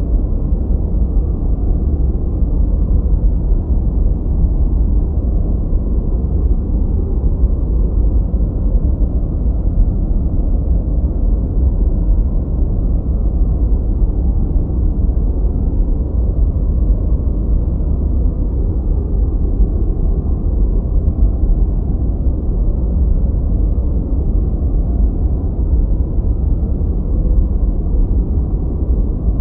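Gentle white noise: a steady, unchanging rush, deep and muffled, with the high hiss cut away.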